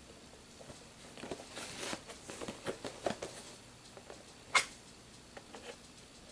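Hands handling and turning over a small cardboard toy box, looking for the way in: a run of light rustles and taps, one sharp click about four and a half seconds in, then a few faint taps.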